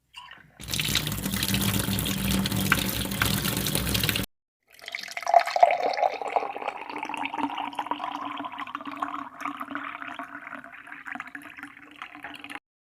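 Water running from a tap into a container, splashing, its pitch rising as the vessel fills; it stops abruptly near the end. Before it, a separate steady hiss with a low hum runs for about four seconds and cuts off suddenly.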